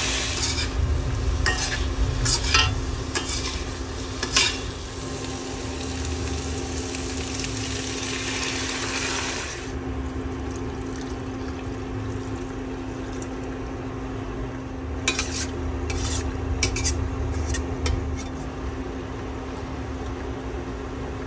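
Tofu and vegetables sizzling in a stainless steel pan, with a metal spatula scraping and knocking against the pan. About ten seconds in, the sizzle cuts off suddenly as water is poured in, and later the spatula clicks against the pan as the mung bean stew is stirred. A steady low hum runs underneath.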